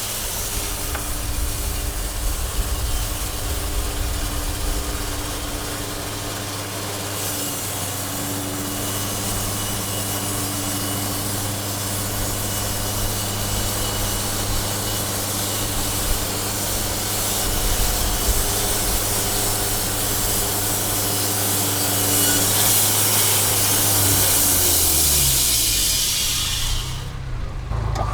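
Band sawmill cutting through a log: a steady machine hum under the hiss of the blade in the wood. Near the end the hum drops in pitch and the cutting hiss stops suddenly as the blade leaves the cut.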